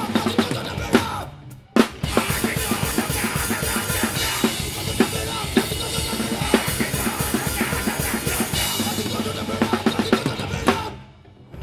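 Punk band playing live with the drum kit loudest: a fast beat of kick, snare and cymbals. It breaks off for a moment about a second in, comes back on a single hit, and drops out again near the end.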